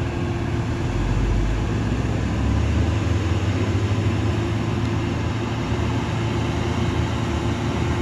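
Diesel engine of a Hino truck running as the truck approaches at low speed, a steady low drone that holds an even pitch.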